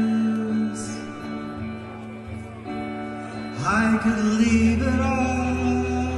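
Live solo performance: a man singing long, held notes to his own electric guitar. A held note fades in the middle, and a new sung phrase begins about two-thirds of the way in.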